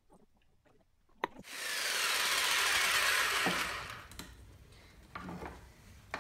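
Corded electric jigsaw cutting through a wooden decking board: it starts just after a click about a second in, runs for about two seconds, then stops.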